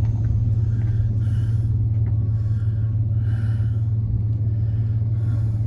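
Pickup truck engine running steadily, an even low hum with no revving.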